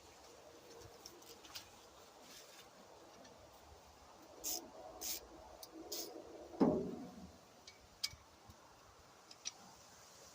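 Scattered light clicks and metal clinks of hand tools being handled, with a louder clunk about two-thirds of the way through.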